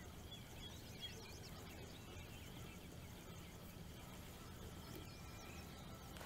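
Faint birdsong: a few high chirps and trills, mostly in the first couple of seconds, over a low steady background hum.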